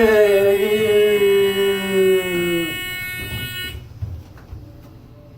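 An elevator's steady, high electronic buzzing tone sounds on and cuts off suddenly a little under four seconds in, in a car the rider calls "losing its mind". Over the first part of it, a voice holds one long note that slowly falls in pitch.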